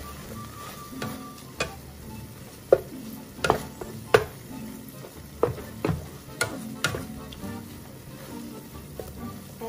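Slotted spatula knocking and scraping against a nonstick frying pan as it stirs and breaks up ground beef in a tomato-onion sauce, with about a dozen irregular sharp taps over a low sizzle of the frying meat.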